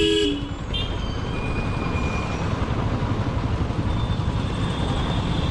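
Royal Enfield Classic 350's single-cylinder engine thumping steadily at low speed in city traffic, with a vehicle horn sounding briefly right at the start.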